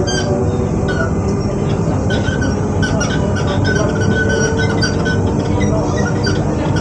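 Z2N double-deck electric multiple unit standing at the platform, its on-board equipment running with a steady hum and a few faint, higher tones that come and go.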